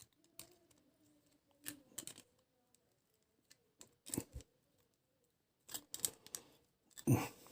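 Scattered light clicks and taps from handling the plastic parts of an electric sewing-machine foot pedal, which has just been reassembled with its stack of graphite discs.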